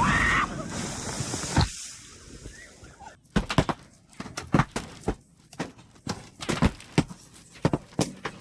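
A noisy rush that ends in a thump just under two seconds in; then, a little after three seconds, horse hooves clopping on a hard surface in irregular sharp knocks, two or three a second.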